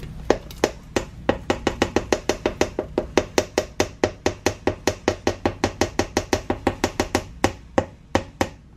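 A kitchen utensil knocking rapidly against a metal pot, about five quick clicks a second with a slight metallic ring. The clicks pause briefly near the end and then resume.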